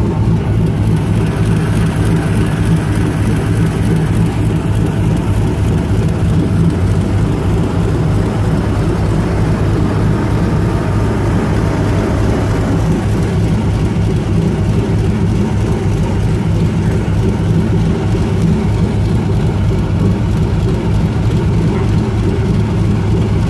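V8 airboat engine and propeller running steadily with a low, even drone.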